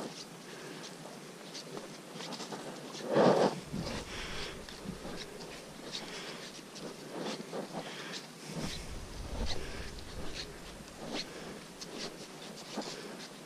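Footsteps and rustling of hikers walking a muddy, leaf-strewn forest trail, irregular crunches and scuffs. One louder rustle or thump comes about three seconds in.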